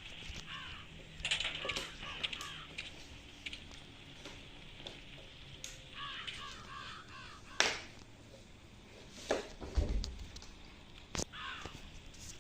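Harsh bird calls in three bouts: a run of calls early on, another about six seconds in, and a short one near the end. A couple of sharp knocks sound between them.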